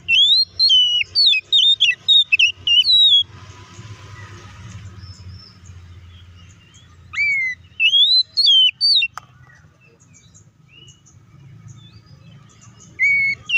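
Oriental magpie-robin (kacer) singing: loud, clear whistled notes sliding up and down in quick phrases, one at the start and another about seven seconds in, with a third beginning near the end. A short harsh rasp follows the first phrase.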